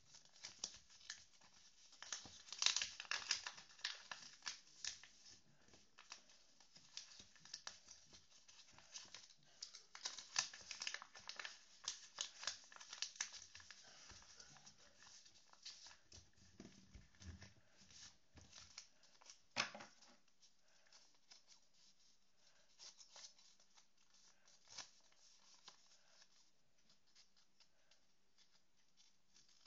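A sheet of paper being folded and creased by hand, with a run of crinkles and rustles that is busiest in the first half and thins out later.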